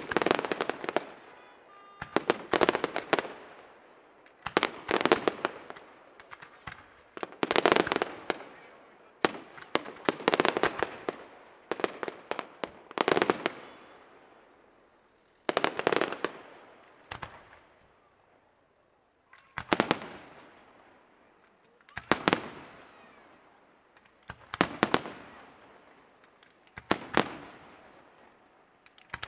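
Aerial fireworks shells bursting overhead in quick groups of sharp bangs every two to three seconds. Each group trails off in a fading crackle and echo.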